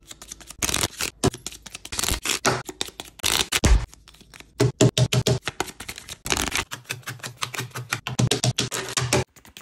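Quick, irregular clicking and clacking of cardboard game cards and tokens being shuffled, stacked and set down on a wooden table.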